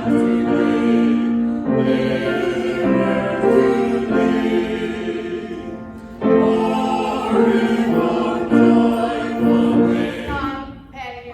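Choir singing, long held chords in phrases, with a short break about six seconds in; the music fades away near the end.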